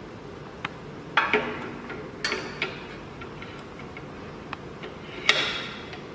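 Metal key clamp clacking and clinking against the key cutting machine as it is fitted into place. There are a few sharp metallic clacks with a short ring, the loudest about five seconds in, and light ticks between them.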